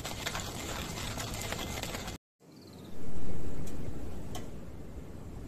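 Hand-cranked coffee mill grinding beans, a dense rapid crunching that cuts off about two seconds in. After that it is quieter, with two sharp crackles from a wood campfire and a short high chirp.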